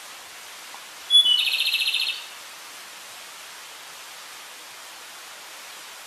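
A flycatcher (tledekan gunung) sings once about a second in: two quick high whistles followed by a rapid trill lasting about a second, over a steady hiss.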